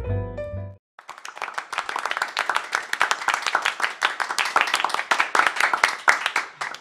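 Piano music ends under a second in; then many hands clap in applause for about six seconds.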